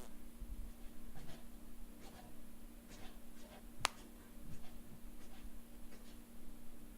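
Faint, irregular scratching and rustling handling sounds, with one sharp click about four seconds in, over a steady low hum.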